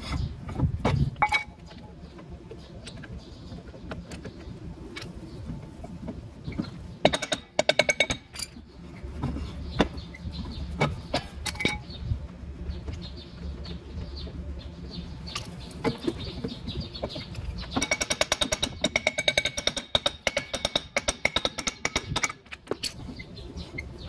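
Metal clicking and scraping from a golf cart's drum brake being adjusted by hand: a screwdriver works the shoe adjuster through the backing plate and the brake drum is turned against the shoes. The clicks are scattered, with a quick run about seven seconds in and a longer stretch of rapid ratchet-like clicking later on.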